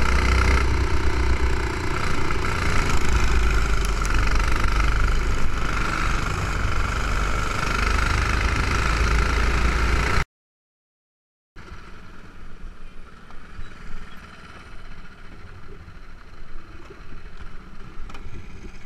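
Racing kart's single-cylinder four-stroke clone engine running steadily at speed with wind buffeting the onboard microphone, cut off suddenly about ten seconds in. After a second of silence, only faint outdoor noise follows.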